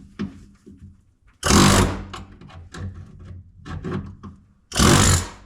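Air chisel with a flat chisel bit run in two short bursts, about a second and a half in and again near the end, hammering through rusty sheet-metal floor pan. Lighter knocks and scrapes of metal come in between.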